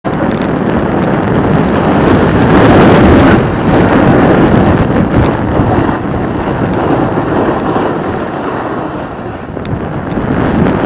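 Wind buffeting the microphone of a moving camera on a snowboard run, mixed with the hiss of a snowboard sliding over packed snow. Loudest about three seconds in, easing off a little near the end.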